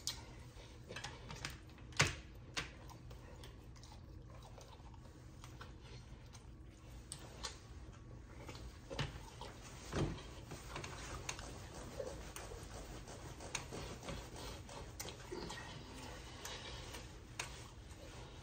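Faint eating sounds: a person chewing, with small scattered mouth clicks and smacks, and a few louder clicks about 2 s and 10 s in.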